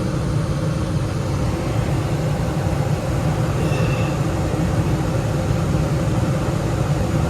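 Air-conditioning system running: a steady low hum with even air noise.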